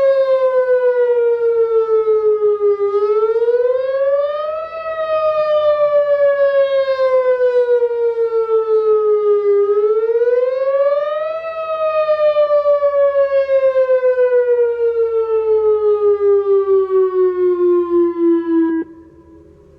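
Whelen WPS 2908 electronic outdoor warning siren sounding during a test: its tone falls slowly, sweeps quickly back up, and does this twice before a last long fall, then cuts off abruptly near the end. The loudness flutters rapidly throughout.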